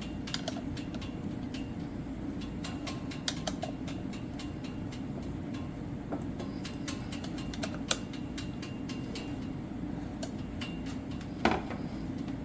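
Hand tools working on a bicycle crank and bottom bracket: a scatter of small metal clicks and ticks, with one louder knock near the end, over a steady low hum.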